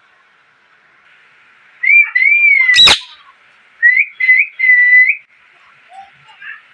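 Pet parrot whistling: a gliding whistled phrase about two seconds in, ending in a brief sharp sound that sweeps down in pitch, then three short whistled notes a second later.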